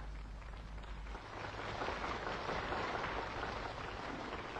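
A crowd applauding, an even patter of clapping that swells a little about a second in.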